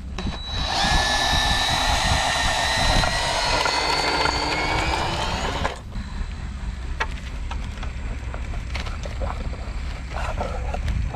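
Electric drill turning a hay coring probe into a round bale for about five seconds, its whine creeping up in pitch over a rasping hiss, then stopping abruptly; a low steady rumble runs underneath.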